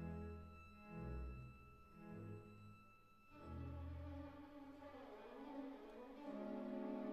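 Slow background music on bowed strings, violin over low cello and bass, with held notes that change every few seconds.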